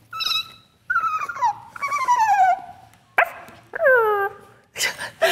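Puppy whimpering and whining: about five high cries in a few seconds, most of them falling in pitch.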